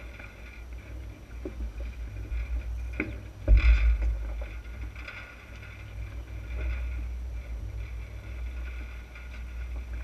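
Wind buffeting the microphone over water washing along an Enterprise sailing dinghy's hull, with a sharp knock about three and a half seconds in.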